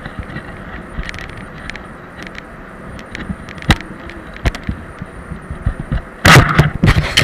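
Steady rushing hum of a spray booth's air extraction, with scattered clicks and knocks of the camera being handled. A loud burst of handling and rubbing noise lasts about a second near the end.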